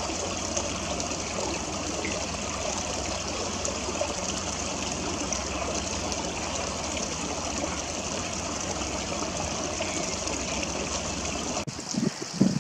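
Steady rushing of a flowing stream running past a concrete bank. It changes abruptly near the end to a quieter, uneven background.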